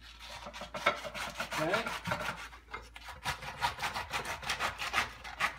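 A knife sawing back and forth through a raw artichoke, a quick run of rasping strokes, several a second, as the tough leaves and stem are cut away.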